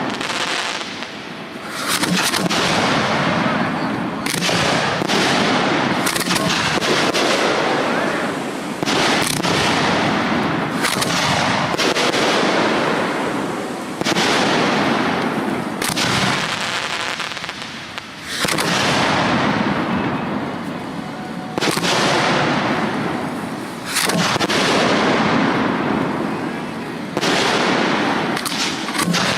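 Professional 1.3G display fireworks being fired: aerial shells bang every second or two, each followed by a fading hiss and crackle, in a steady run through the whole stretch.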